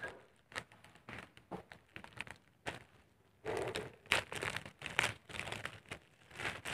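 Plastic courier mailer crinkling and crackling as it is handled and picked open by hand. The crackles are irregular, sparse at first and busier from about three and a half seconds in.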